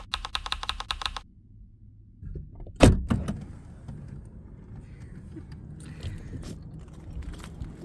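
Typewriter-style key clicks, about six a second, for the first second or so. A loud thunk about three seconds in is followed by low rustling and knocking as bags are handled in a car's open trunk.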